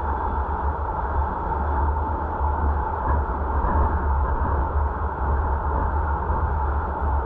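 Steady road and wind noise of a moving car, heard from inside the cabin: a low rumble with an even hiss over it.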